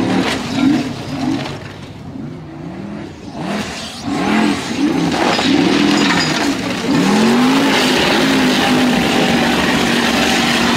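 Formula Offroad buggy's racing engine revving hard, its pitch swooping up and down again and again as the driver works the throttle on spade tyres. It dips about two seconds in, then comes back loud with a higher, held pitch over a noisy hiss of spray.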